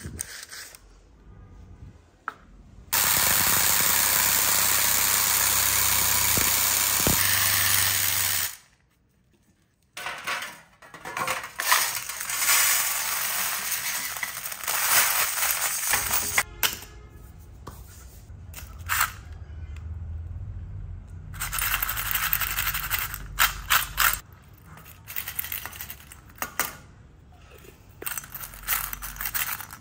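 A loud, steady machine noise runs for about five seconds and then cuts off suddenly. After a short gap comes irregular rattling and clatter of small hard pellets shaken in a metal mesh basket, with small metal parts clinking near the end.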